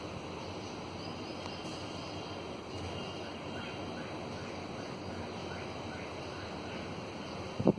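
Steady outdoor background noise, an even low hiss with faint short high chirps here and there. Right at the end, a sudden loud buffeting of wind on the microphone.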